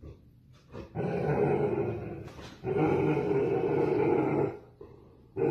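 German Shepherd growling: two long growls of about a second and a half each with a short break between, and a third beginning near the end.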